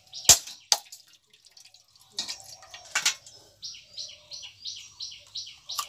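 A knife striking the hard shell of a mature coconut to crack it open: two sharp knocks in the first second and another about three seconds in. From the middle on, a bird chirps repeatedly, about three short calls a second.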